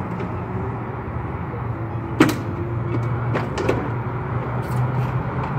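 Plastic tail light assembly being worked loose from a 2009 Dodge Grand Caravan's body by hand: one sharp snap about two seconds in as it pops free, then a few lighter clicks and knocks of the plastic housing. A steady low hum runs underneath.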